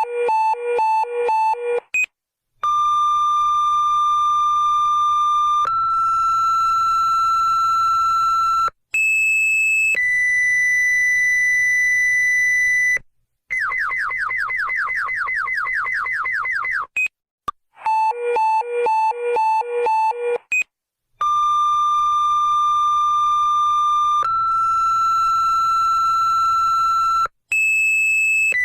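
Electronic emergency-alert-style alarm tones: a run of quick beeps, then long steady tones that step up in pitch, a short high tone, and a few seconds of rapid falling chirps, about seven a second. The sequence then starts over with the beeps and steady tones.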